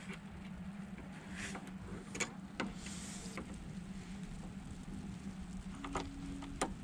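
Scattered clicks and light knocks of hand tools working on a battery cable end, over a steady low hum, with a brief hiss about three seconds in.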